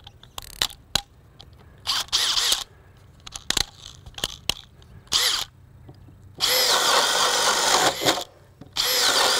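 Makita 40V max XGT GPH01 brushless hammer drill-driver: a few clicks and two short spins while a 1-3/8-inch spade bit is fitted. About six and a half seconds in, the drill runs under load, boring into wet, knotty lumber, stops briefly, then starts again.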